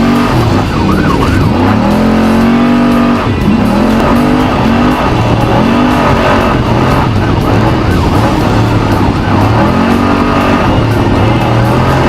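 Trophy truck's race engine revving hard, its pitch climbing and dropping again and again as the throttle is worked at racing speed.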